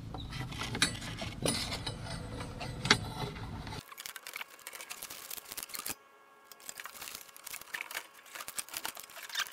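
Irregular clicks, taps and scraping of a straightened wire coat hanger and a hand working among cables and metal fittings, fishing stuck wires out of a cavity. A low rumble under it stops suddenly about four seconds in.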